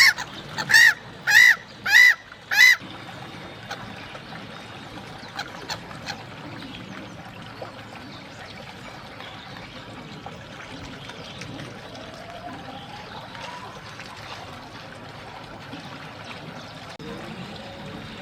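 Black-headed gull calling: five loud, sharp calls in quick succession, roughly every half-second, over the first three seconds. A steady low background wash follows for the rest.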